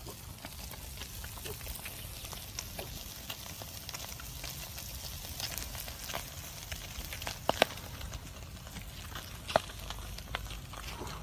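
Open wood fire crackling and hissing under whole fish roasting on the embers, with scattered sharp pops, the loudest a close pair about two-thirds of the way through and two more near the end.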